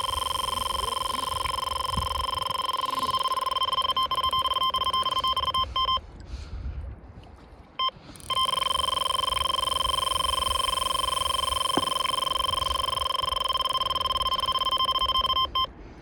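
Electronic carp bite alarm sounding one continuous high beep, the sign of a carp running with the line. It stops about six seconds in and starts again two seconds later.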